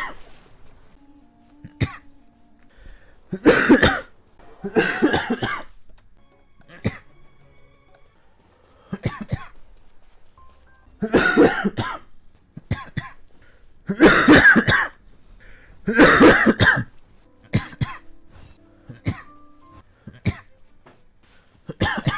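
Repeated coughing: a dozen or so separate coughs and short coughing bouts, some loud and some lighter, with quiet gaps between them.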